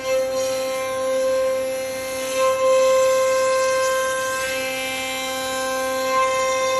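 CNC router spindle running with a steady high whine while cutting wood boards. A lower hum fades in and out twice as the cut goes on.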